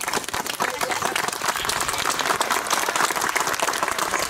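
Spectators applauding: many hands clapping at once, building up over the first couple of seconds and then holding steady.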